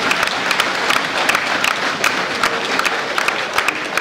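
Audience applauding: many hands clapping together at once, dense and steady.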